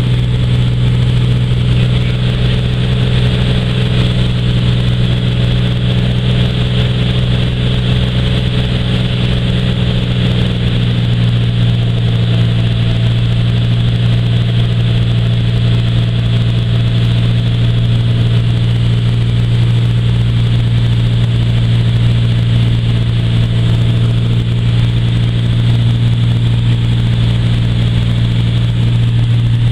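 Bellanca Super Viking's single piston engine and propeller droning steadily in flight after takeoff, heard inside the cabin. The tone shifts slightly about ten seconds in.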